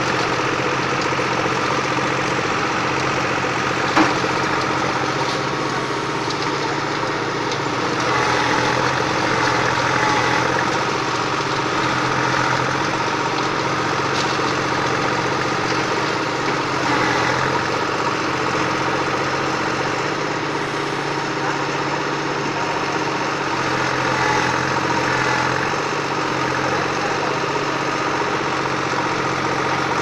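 Tractor engine running steadily as it powers a rear-mounted backhoe digging and dumping soil, the engine note swelling slightly a few times. One sharp knock sounds about four seconds in.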